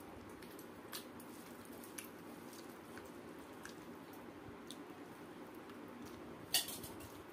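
Soft squishing and faint clicks as rice is mashed and mixed by hand on a steel plate, with chewing. About six and a half seconds in comes a louder, sharper wet mouth sound as a handful of rice goes into the mouth.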